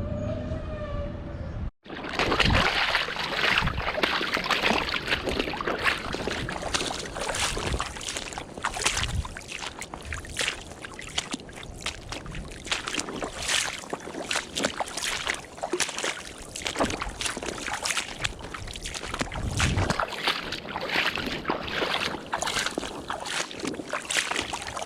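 Water splashing and sloshing around a kayak moving on the river, a dense run of irregular splashes.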